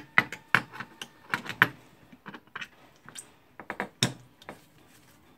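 Irregular sharp clicks and light knocks from hard parts of the tool being handled while it is refilled with grease.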